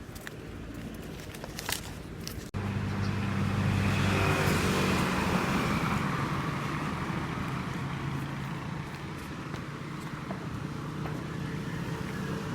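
A few light clicks, then a sudden cut to a steady motor-vehicle engine hum with road noise, which swells a couple of seconds later and eases off.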